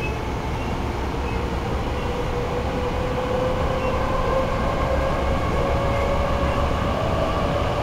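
Hankyu 8300 series electric train running, heard from inside the car: a steady low rumble of wheels on rail with a faint motor whine that climbs slightly in pitch as the train gathers speed.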